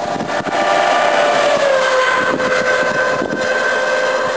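A motor vehicle's engine running with a steady whine that sinks a little in pitch over the first couple of seconds, then holds level.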